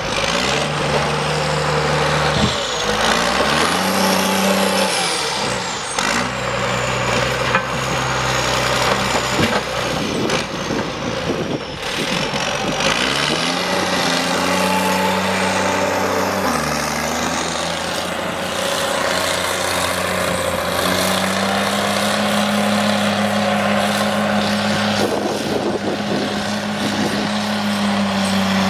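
Heavy logging machine's diesel engine running and revving, its pitch stepping up and down several times as it works, with a faint high whine rising and falling above it.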